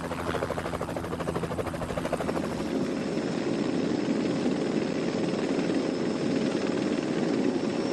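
Helicopter rotor chopping in a fast, even pulse over a steady engine hum. About two seconds in it gives way to a steady rushing noise with a faint level hum.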